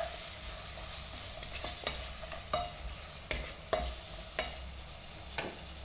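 Wooden spatula stirring chicken and vegetables in a nonstick pan, scraping and tossing with a stroke about every second over the steady sizzle of the frying food.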